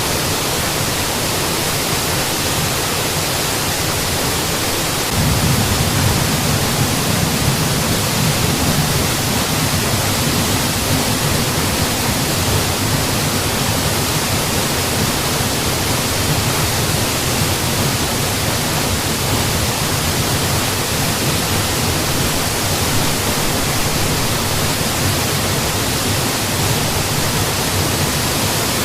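A mountain waterfall rushing: a steady, even hiss of falling water. About five seconds in, its low rumble gets stronger and then holds steady.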